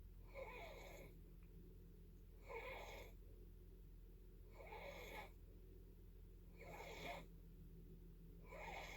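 Faint snoring from a sleeper, a regular breath sound about half a second long coming roughly every two seconds, five times.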